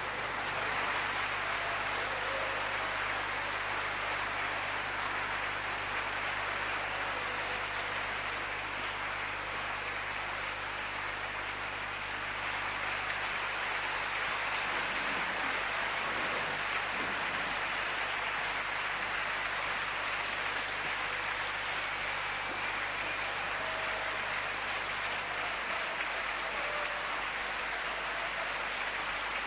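Large concert audience applauding steadily as a piece of music ends.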